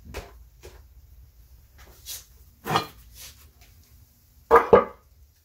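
Light knocks of a wooden board and a masked engine cylinder head being handled on a shop stool, then two loud knocks in quick succession near the end as the heavy head is set down on the board.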